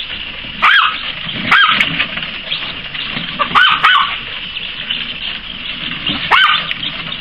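Poodle puppy yipping: about six short, high-pitched yips, three of them in a quick run about three and a half seconds in.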